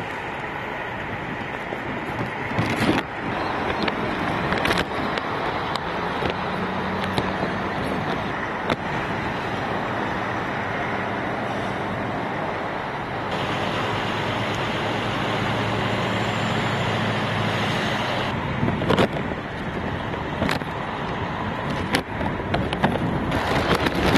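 Road traffic: cars driving past on a highway, a steady wash of tyre and engine noise with an engine hum swelling through the middle.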